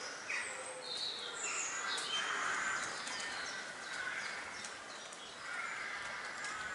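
Wild birds calling and chirping with short high notes throughout, over the slow footsteps of a person walking on wet stone paving.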